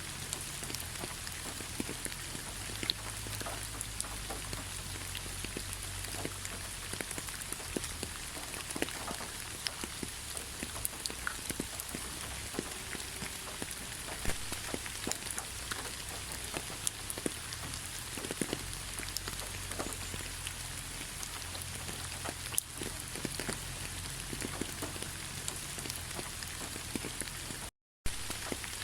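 Steady rain: an even hiss with many separate drops ticking on a surface and a low rumble underneath. The sound drops out completely for a split second near the end.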